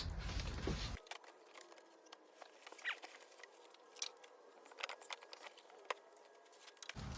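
Faint scattered clicks, taps and scratchy rustles of a cardboard box and its packing being opened by hand.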